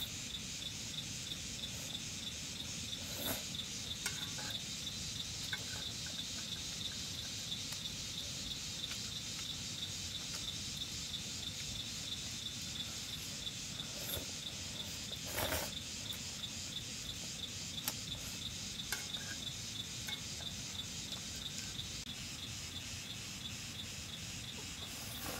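Insects trilling steadily, a fast pulsing high-pitched chirr, with a few short knocks from something being handled, the loudest about fifteen seconds in.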